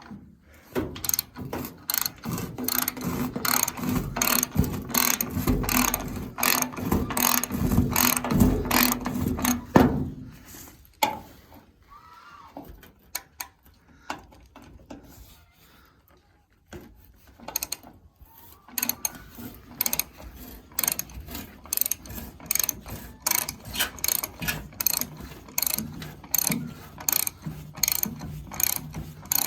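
Hand ratchet wrench clicking in quick, repeated strokes as bolts are backed off. The clicking goes quiet for several seconds partway through, then picks up again.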